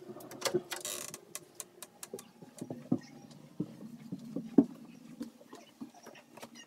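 Irregular soft knocks and clicks of footsteps and handheld-camera handling while walking through a house and up carpeted stairs, with a brief scrape about a second in and a faint steady hum underneath.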